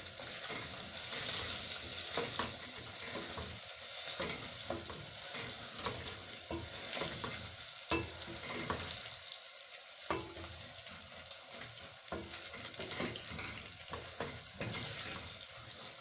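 Beef pieces with fried onions and spices sizzling in hot oil in a cooking pot, with a spoon scraping and clicking against the pot as they are stirred.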